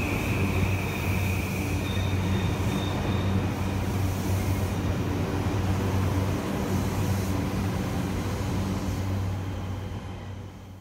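JR East E235-series Yamanote Line electric train pulling out of the platform, running steadily on the rails with a high motor whine in the first couple of seconds. The sound fades away near the end as the last car clears the platform.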